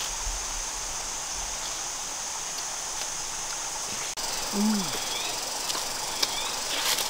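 Steady forest ambience: a constant high insect drone over the hiss of a flowing stream. About two-thirds of the way through comes one short, low voice-like sound.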